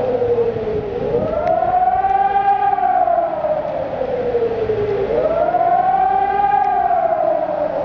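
Hörmann ECN 2400 electronic civil-defence siren sounding a wailing tone that rises and falls about every four seconds, as part of a public siren test.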